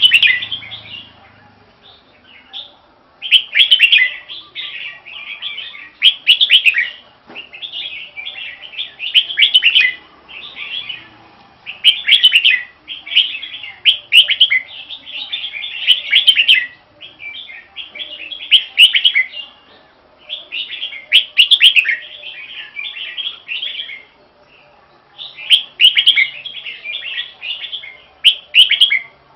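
Red-whiskered bulbul singing: a long series of quick, bright warbled phrases about a second each, with short pauses between them and one longer break near the end.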